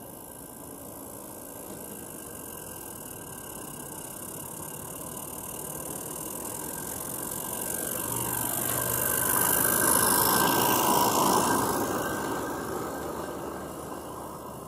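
Regner Konrad G-scale live steam locomotive hauling a short rake of open wagons running past. It grows steadily louder as it approaches, is loudest around ten seconds in with a falling pitch as it goes by, then fades away.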